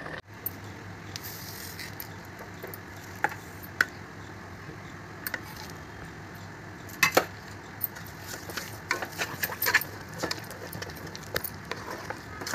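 A wooden spatula knocking and scraping against a cooking pan as thick sabudana kheer is stirred: a few sharp clicks spread apart, then a quicker run of them over the last few seconds.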